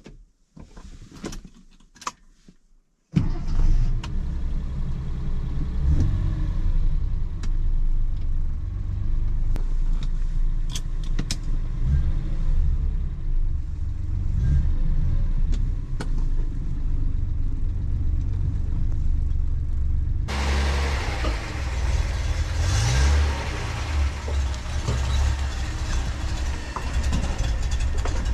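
A few faint clicks, then from about three seconds in the Nissan Skyline 'Kenmeri' (C110) engine runs steadily with a deep low rumble. About twenty seconds in, a steady hiss joins over the engine.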